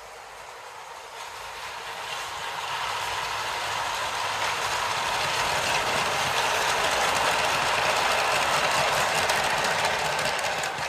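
Model train (a modified BlueBrixx Union Pacific Big Boy locomotive hauling freight wagons) running on plastic brick-built track: a steady rattling rush of wheels on the track that grows louder over the first five seconds as the train nears, then holds.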